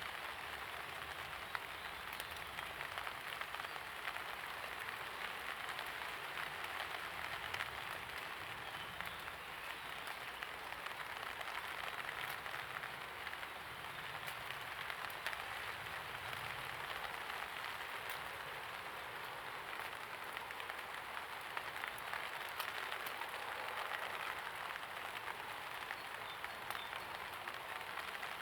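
Steady light rain pattering on surfaces, with scattered individual drop ticks.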